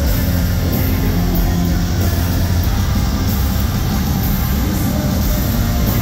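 Live hard rock band playing loudly, electric guitars over heavy bass and drums, heard from within the arena crowd.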